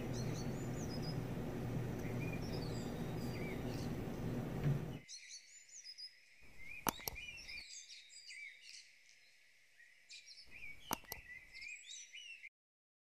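Birds chirping and twittering, over a steady low outdoor rumble for the first five seconds, then on their own. Two sharp clicks come about seven and eleven seconds in, and everything cuts off abruptly near the end.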